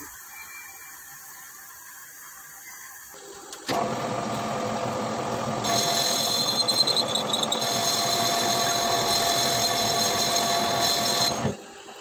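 Metal lathe running and cutting a steel gear held in a three-jaw chuck. It starts about three and a half seconds in, a steady high ringing tone joins about two seconds later, and it cuts off suddenly near the end.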